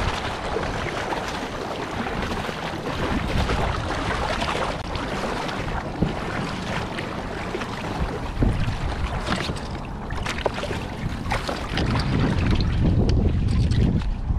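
Gusty wind buffeting the microphone, heaviest near the end, over water splashing and lapping around a small inflatable float boat being kicked toward the shore.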